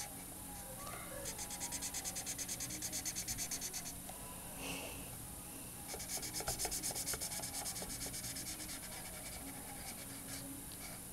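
Felt-tip marker colouring in on paper with quick back-and-forth strokes, in two runs: from about a second in to four seconds, and again from about six to eight seconds.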